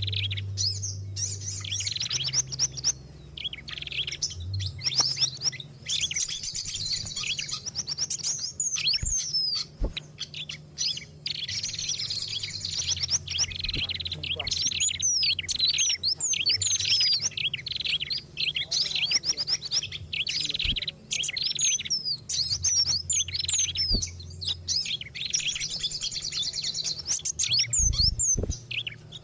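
Several small songbirds' calls layered into a bird-lure mix: dense, agitated chattering with rapid high chirps, trills and quick up-and-down sweeps overlapping without a break. A steady low hum runs underneath.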